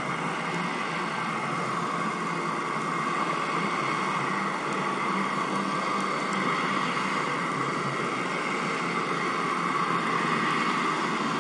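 Steady underwater noise picked up by a GoPro in its waterproof housing: an even, muffled hiss with a faint constant hum beneath it.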